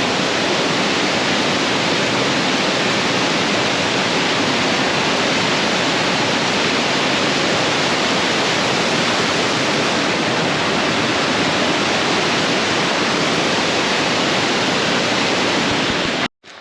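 Large waterfall plunging into a deep pool: a loud, steady rush of falling water that cuts off suddenly near the end.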